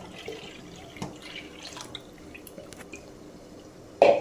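Faint dripping of liquid with small scattered ticks and a soft knock about a second in, then a loud clatter of metal cookware near the end.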